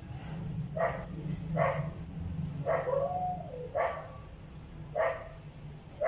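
A dog barking repeatedly, about once a second, with one longer, drawn-out call in the middle.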